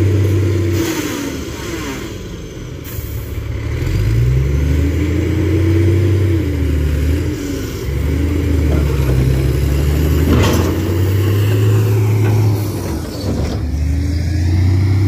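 Heavy diesel engine running hard under load, its pitch sagging and climbing again several times as it is revved and labours, with a higher whine rising and falling along with it.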